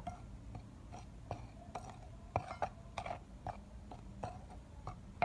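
A metal spoon stirring a dry flour mixture in a glass mixing bowl: soft scraping with scattered light clicks of the spoon against the bowl.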